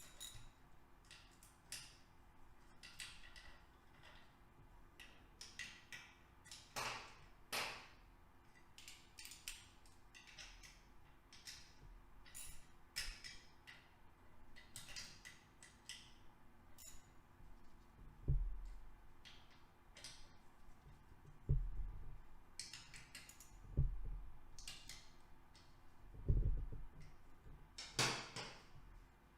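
Scattered small metallic clicks and taps of hand tools and bolts as bolts are fitted into a Honda CBX engine case during reassembly. Four dull thumps come in the second half.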